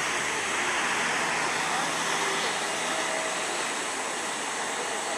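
Steady jet engine noise from a wide-body airliner taxiing: an even, unbroken whoosh.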